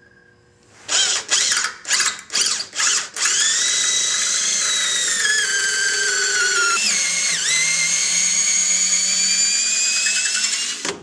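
Cordless drill boring through the rubber of a control arm's torsion-bar bushing: several short trigger bursts, then one long continuous run from about three seconds in. The motor's whine sags under the load, dips sharply once midway, then holds steady until the trigger is released just before the end.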